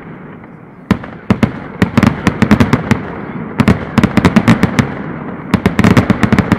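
Fireworks finale (traca): rapid volleys of loud firecracker bangs. Quieter for about the first second, then bangs come in dense clusters of several a second, with a low echoing rumble between them.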